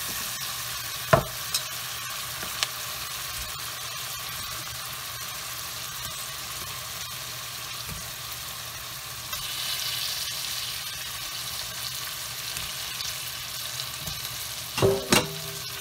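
A tomato and spice masala sizzling steadily in a stainless steel pot as pieces of pomfret are added. The sizzle swells briefly about ten seconds in. There is a sharp tap about a second in and a louder clatter near the end.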